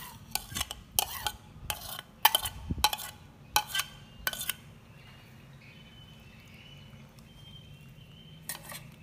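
Metal spoon scraping and clinking against a ceramic plate and the rim of a metal cooking pot as garlic cloves and lime leaves are pushed off into the pot: a quick run of clinks and scrapes over the first four and a half seconds, then quieter, with one more clink near the end.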